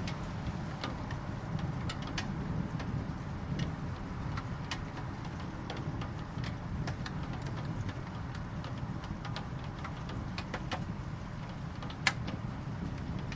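Rain ambience: scattered raindrops ticking sharply and irregularly, about one a second, over a steady low rumble.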